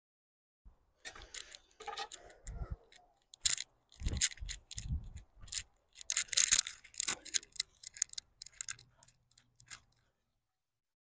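A run of crunchy scrapes, clicks and rustles with a few dull thumps, from a shovel and loose garden soil being handled as soil is worked in around a newly planted tree.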